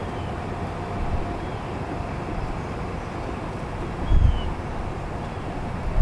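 Outdoor street ambience: a steady low rumble of truck engines, with a faint steady tone that fades out about a second in and a few faint high chirps. A low thump comes about four seconds in.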